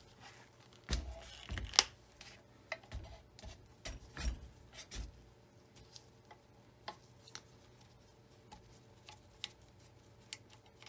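A Singer Featherweight 221 sewing machine being handled and turned over on a cardboard-covered bench: a run of knocks and dull thuds in the first few seconds, with one sharp click the loudest, then occasional light clicks of parts and tools.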